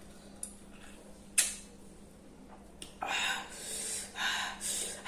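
A few sharp mouth clicks while eating, then from about three seconds in a run of loud, hissing breaths sucked in and blown out through the mouth: the eater's reaction to the heat of very hot chilli.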